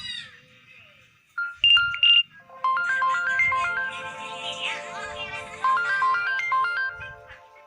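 LG Magna phone ringtone: a short bright phrase about a second and a half in, then from about two and a half seconds an electronic melody of quick stepping notes over held chords.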